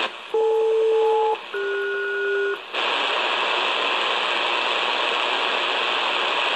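SELCAL selective-calling tones from an ARINC HF ground station, received on a shortwave receiver in upper sideband: two pulses of about a second each, each a pair of steady tones sounded together, with a short gap between them. This code alerts one particular aircraft's crew to a call. About half a second after the second pulse, steady shortwave static hiss comes back.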